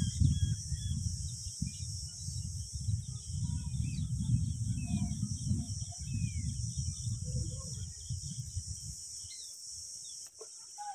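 Small birds chirping busily with short calls and downward slurs over a steady high insect drone. An irregular low rumble runs underneath and dies away near the end.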